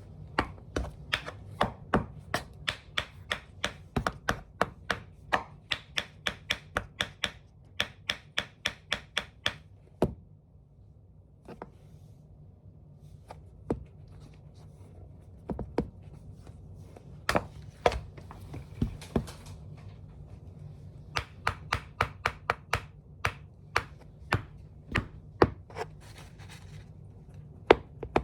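Tap shoes clicking on a hard floor in quick even runs of about three to four sharp taps a second, with a stretch of scattered single taps in the middle. A faint low hum runs underneath.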